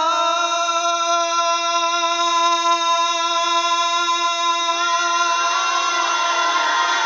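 Man singing a naat, Urdu devotional song, unaccompanied: he holds one long steady note for about five seconds, then moves into a wavering, ornamented run of notes.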